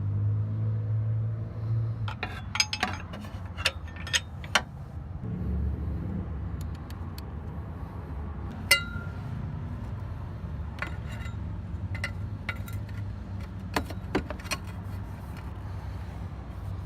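Metal tools and parts clinking and tapping in scattered bursts, with one ringing metallic ping near the middle, over a low steady hum.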